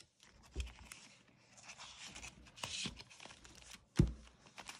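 Paper cash and envelopes being handled and shuffled: rustling and crinkling of paper, with light clicks and one sharp knock about four seconds in.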